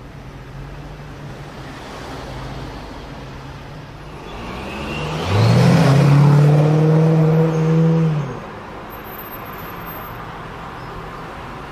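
A car engine runs steadily. About five seconds in, a loud engine note swells in, rises in pitch and holds level for about three seconds, then drops away.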